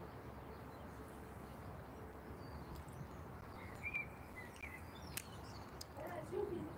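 Open-air rural ambience: a steady low background rumble with small birds chirping, a short run of chirps about four seconds in.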